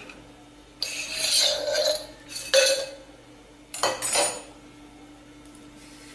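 Metal puttu maker tube clattering and scraping against a plate as it is handled and lifted away, in three short bursts over about the first four and a half seconds.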